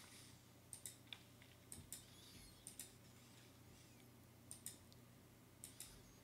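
Faint computer mouse clicks over near silence: about five short double ticks, roughly a second apart.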